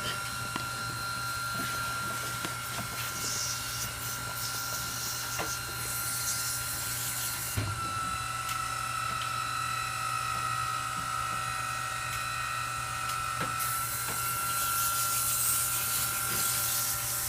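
Small electric pressure-washer pump whining steadily while water sprays onto an air conditioner's heat-exchanger fins, the spray hiss swelling louder twice for a few seconds.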